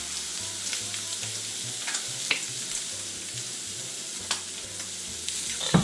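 Spam searing in a hot oiled pan, a steady sizzle, with a few sharp clicks as it is turned against the pan.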